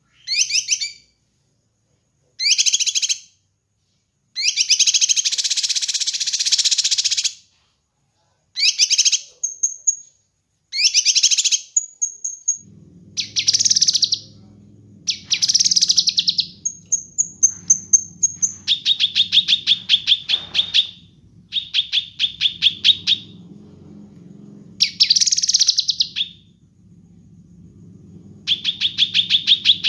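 Kinoi songbird singing in short separate phrases: bright chirping bursts, a few thin high whistles, then fast trills of rapidly repeated notes. A low steady hum sets in about halfway through.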